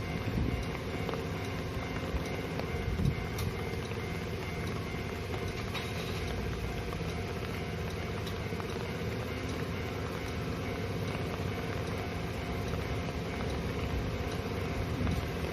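Kintetsu Osaka Line train passing over a level crossing: a steady rumble of wheels on the rails at an even level, with a few light clicks.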